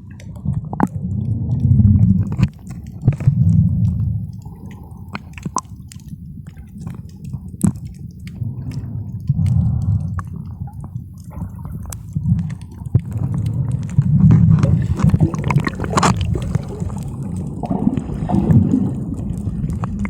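Muffled water movement heard through a camera held underwater in the sea: a low gurgling rumble that swells and fades every few seconds, with scattered sharp clicks.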